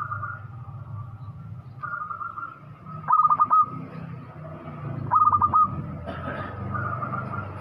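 Local zebra dove (perkutut) cooing in full voice, its song phrases repeating about every two seconds, each ending in a quick run of about five rolling notes, with longer drawn-out notes in between.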